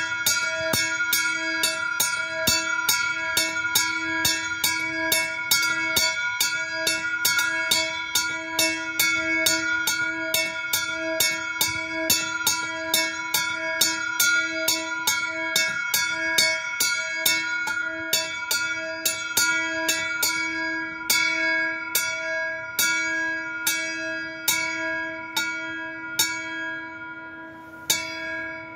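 Small bronze bell, the 2020 Petit & Edelbrock Marienglocke, swung and struck by its clapper at about two strikes a second with a steady ringing hum. Over the last several seconds the strikes thin out as the swing dies down, and the last one near the end is left to ring away.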